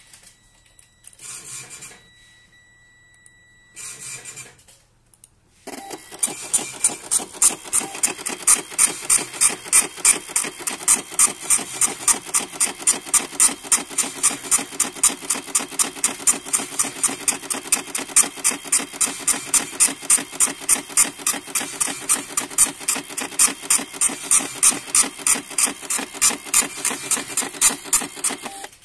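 Xprinter XP-76 76 mm dot-matrix receipt printer printing a test page. It starts about six seconds in and keeps up an even rasping chatter of the print head and paper feed, about three to four pulses a second.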